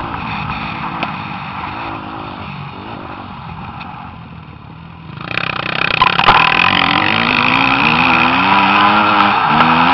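Motocross dirt bike engines. For the first five seconds a bike's engine fades away. Then, about five seconds in, the sound jumps abruptly to a loud engine revving up and down as the rider works the throttle.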